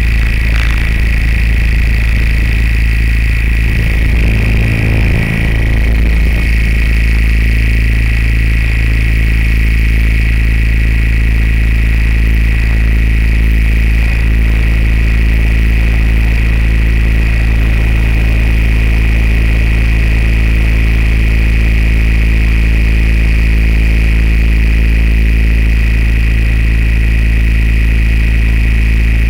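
Steady, loud hum of a camera drone's motors and propellers, picked up by its own onboard microphone, with a brief rumble about four to six seconds in.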